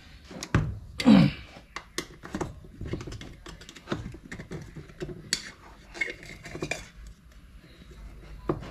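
Metal parts of a Hitachi jackhammer clicking and clinking as they are handled and fitted together, in irregular small taps.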